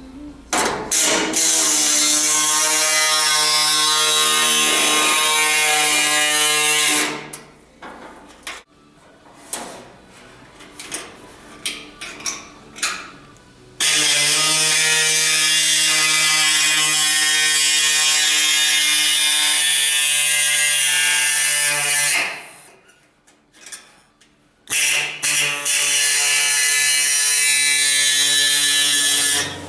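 A sheet-metal shrinking machine runs in three long bursts of several seconds each, a steady mechanical buzz. It is compressing the sheet steel for a curved window-frame repair panel. Scattered clicks and knocks come in the pauses between the bursts.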